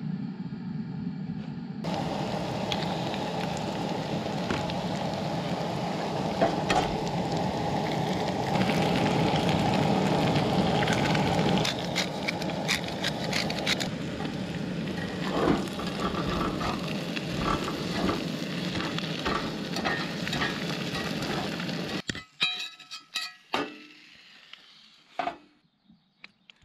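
Potatoes and eggs sizzling in a cast-iron skillet on a camp stove, a steady hiss with a metal spatula scraping and clicking against the pan. Near the end the sizzle gives way to a few quieter clicks and taps.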